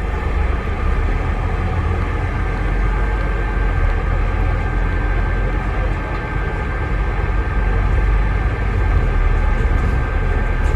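Scania Enviro 400 double-decker bus engine running steadily under way, heard from inside the passenger cabin as a deep rumble, with a steady high-pitched turbocharger whistle over it.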